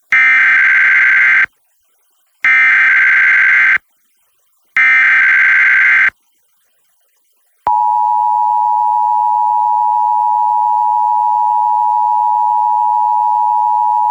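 Emergency Alert System Required Monthly Test broadcast over FM radio: three loud SAME digital header bursts, each a shrill warbling screech of about a second and a half, a second apart. After a short silence, the steady two-tone EAS attention signal (853 and 960 Hz together) begins about seven and a half seconds in and keeps sounding.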